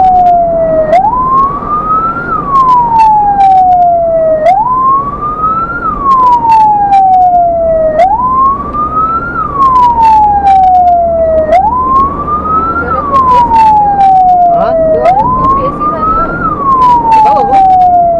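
Ambulance's electronic siren sounding in wail mode, heard from inside the cab: each cycle rises quickly and then falls slowly, repeating about every three and a half seconds.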